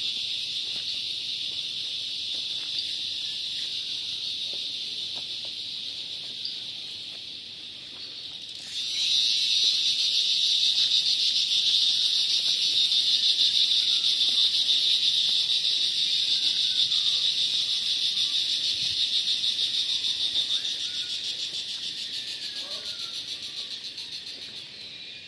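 Chorus of insects such as cicadas or crickets: a continuous high-pitched, fast-pulsing buzz that jumps louder about nine seconds in and fades over the last few seconds.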